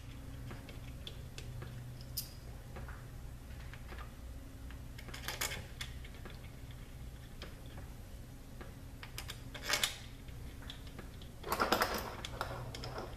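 Scattered small clicks and light metallic clinks from hand work on a Subaru Lineartronic CVT valve body: bolts and parts being handled and started by hand. They come in several short clusters, the loudest near the end, over a low steady hum.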